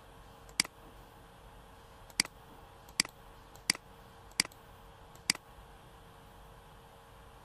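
Computer mouse button clicked six times at uneven intervals, short sharp clicks over a faint steady hum.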